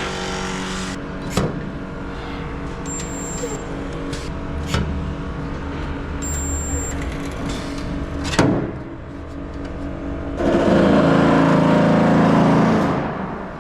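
Loud shop machinery: a steady machine hum with a few sharp clicks, then a much louder, harsh machine noise for about two and a half seconds near the end, louder than the spot welder.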